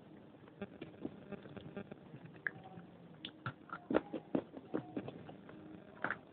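Crisp snapping and crunching of dry baked clay pieces, broken by hand and bitten and chewed close to a lapel microphone. The sharp, irregular cracks come thicker and louder from about three seconds in.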